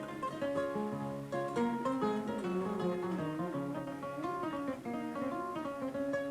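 Kora, the West African 21-string harp-lute, played solo: a flowing, repeating pattern of plucked notes over stepping bass notes.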